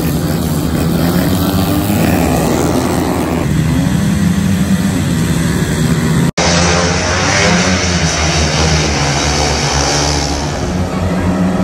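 Several speedway and grasstrack racing motorcycles running hard together, their engines revving up and down. The sound cuts out for an instant about six seconds in and resumes on another race.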